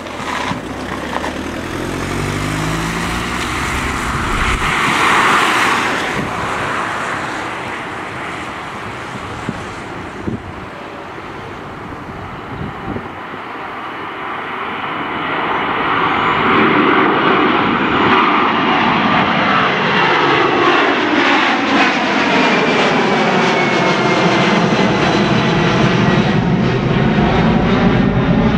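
Boeing 767-300's twin turbofan engines at takeoff power, a broad, steady jet noise that grows louder about halfway through as the airliner rolls past, with a sweeping, phasing quality.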